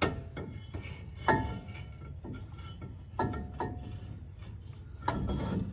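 Metal clanks with a short ring, four or five times, as a brake rotor is fitted back onto the wheel hub of a Jeep Gladiator's rear axle.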